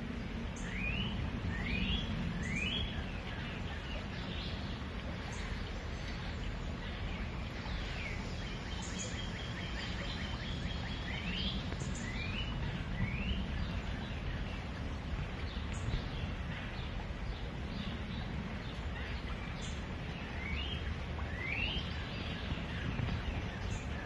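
Steady rushing noise of a forest stream, with birds calling over it: quick rising chirps, often three in a row, coming back several times, and a short fast trill about halfway.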